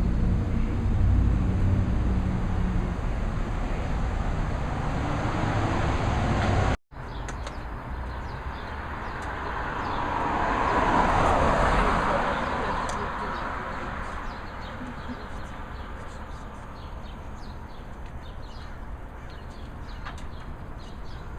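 A vehicle passes by, its noise swelling to a peak about halfway through and slowly fading, over steady outdoor background noise.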